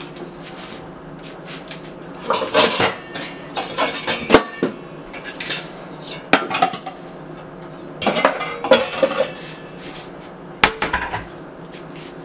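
Metal kitchenware, pots, pans and utensils, clattering and clinking in several irregular bursts, with a sharp knock about four seconds in.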